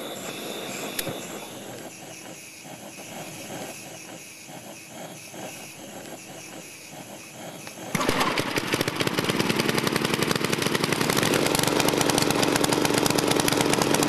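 A small petrol lawn mower engine: after several seconds of quieter uneven rattling, it comes in suddenly about eight seconds in and runs loud, with a fast, dense pulsing.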